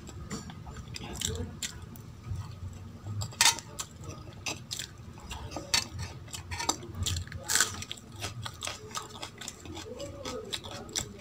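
Fingers mixing and scooping wet dal and rice on a stainless steel plate: irregular squelches, scrapes and clicks against the metal, two of them louder, along with chewing.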